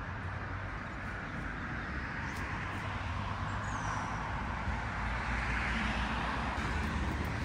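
Steady road traffic noise from passing cars, swelling as a vehicle goes by about four to six seconds in, with a low rumble under it.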